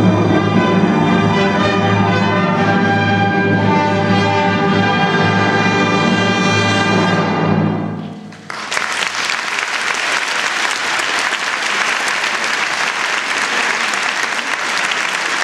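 Symphony orchestra holding its closing chord, which fades out about eight seconds in. Audience applause starts right after and continues.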